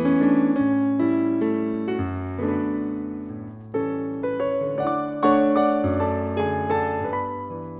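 Solo piano music: a melody in the middle register over low bass notes, each struck note ringing and fading before the next.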